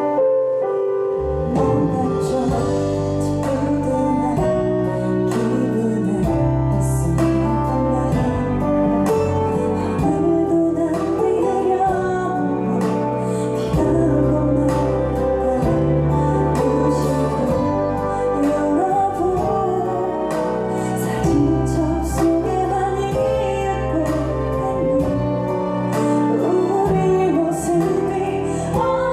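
A ballad with a woman singing into a handheld microphone over the band accompaniment.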